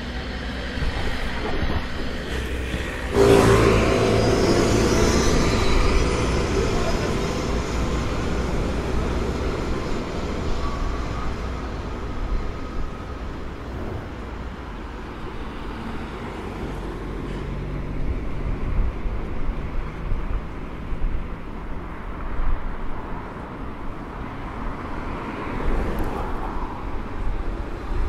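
City street traffic noise with a vehicle going by. The vehicle starts suddenly about three seconds in, is loudest for the next few seconds, then fades back into the steady traffic hum.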